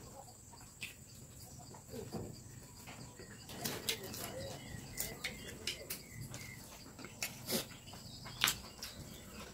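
Quiet mealtime sounds: scattered small clicks and rustles of hands picking rice and food off banana leaves, over a faint, steady, high insect chirring.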